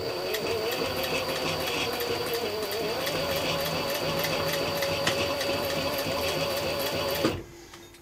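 Juki industrial sewing machine stitching leather straps onto leather. It runs at a steady speed with an even run of rapid needle clicks over its motor hum, starting suddenly and stopping abruptly about seven seconds in.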